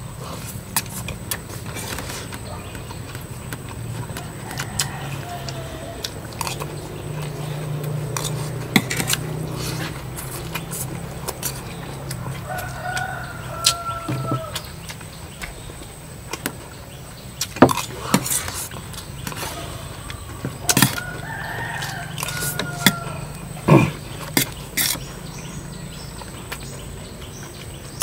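A rooster crowing twice, about halfway through and again some eight seconds later, each crow a pitched call that rises and falls. Sharp clicks and knocks and a low steady hum run underneath.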